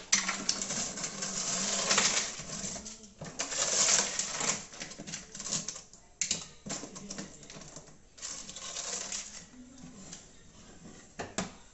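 Hands working on plastic fridge parts while taking the thermostat and its connections out of the freezer frame: bursts of scraping and rubbing with scattered clicks, in three main spells.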